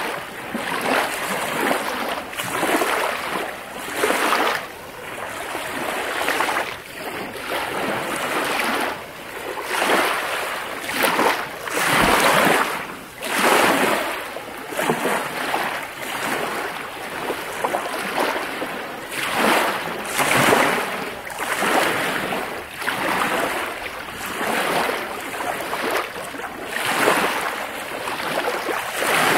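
Small lake waves washing in, one after another, in an irregular series of surges about every second or two.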